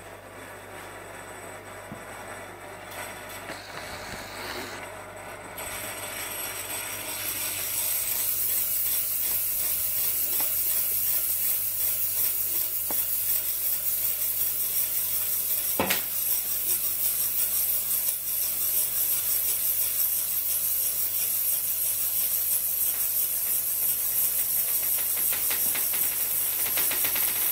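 Steady high-pitched hiss and whir with a fine grinding texture, typical of a fast-spinning metal top running on a hard mirror surface. It grows louder over the first several seconds and then holds steady.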